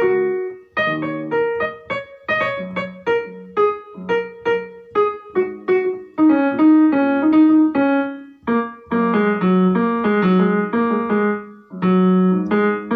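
Background piano music: a lively tune of quick struck notes over lower chords.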